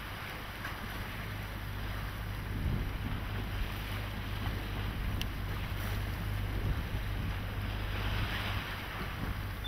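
Wind buffeting the microphone in a steady low rumble, over the hiss of choppy sea water.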